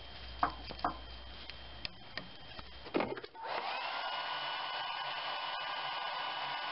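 Handheld hair dryer switched on a little past halfway through: its fan whine rises for a moment and then settles into a steady blowing run. It is heating an old, cracked rubber coolant hose to loosen it. Before it starts there are a few small clicks and knocks of handling.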